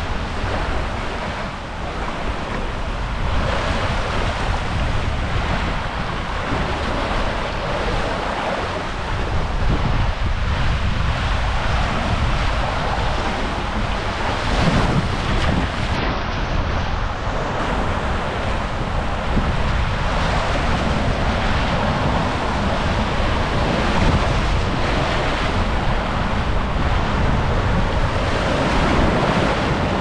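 Water rushing down a fibreglass waterslide flume as a tube rider slides through it: a steady, loud rush, with wind buffeting the microphone.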